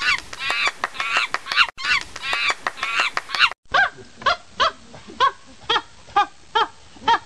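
Animal calls: first a dense burst of overlapping, high, rise-and-fall calls, then, after an abrupt cut, a series of about ten separate calls, roughly three a second.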